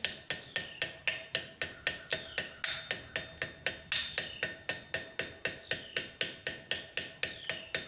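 Small hammer tapping the very end of an annealed .50 BMG brass cartridge case at an angle on the anvil horn, turning in the funnel's mouth to stiffen it. The light, even taps come about four a second, each with a faint ring.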